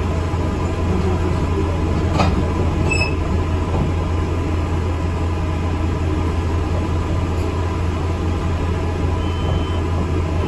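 Inside an ADL Enviro 400 MMC double-decker bus under way: a steady low engine drone and road noise, with one brief knock about two seconds in.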